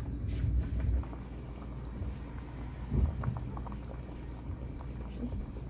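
Pot of curry with potato and mango pieces boiling, the liquid bubbling with small irregular pops over a low steady hum, and a soft thump about three seconds in.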